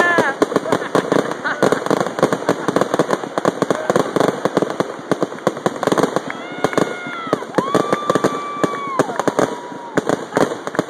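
Fireworks going off in a dense, rapid barrage of crackling and popping. In the second half, spectators whoop in long high cries that hold and then fall away.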